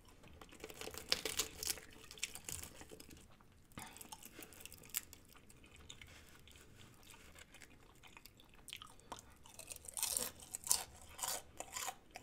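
Close-miked chewing and crunching of crispy fried chicken. Bursts of crisp crunches come in the first two seconds and again from about ten seconds in, with softer chewing between.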